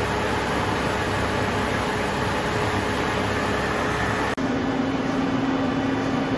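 A CNC lathe, the 1993 Okuma Howa ACT 4, runs under power with a steady mechanical hum and a faint whine. About four seconds in, the sound switches abruptly to a lower-pitched steady hum.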